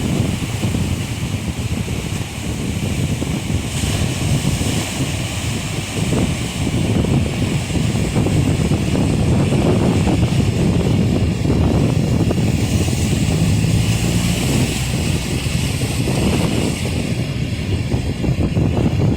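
Wind buffeting the microphone over surf and passing street traffic, a steady loud rumble with a lighter hiss above it.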